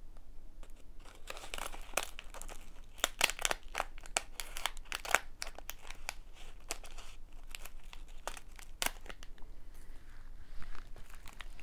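Crinkly plastic snack wrapper crackling as it is handled and cut open with scissors: a dense run of sharp crinkles, busiest in the first half and thinning out toward the end.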